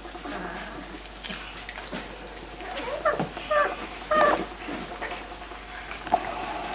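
Bernese mountain dog puppies whimpering and squeaking as they play-mouth each other, about three short high calls in the middle, over soft rustling of bedding and small clicks.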